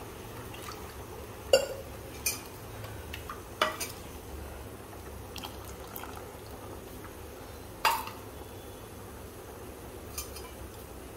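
Beaten buttermilk being poured into a steel pot of curry, with sharp clinks of steel utensils against the pot, four louder ones, the loudest about a second and a half in and another near eight seconds.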